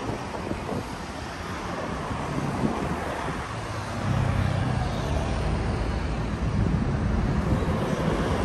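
Street traffic with cars driving past and wind buffeting the microphone. About halfway through, a deeper engine hum comes in and grows steadily louder.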